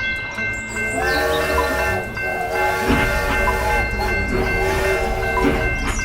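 Background music over a steady low rumble, with a sustained pitched tone sounding three times.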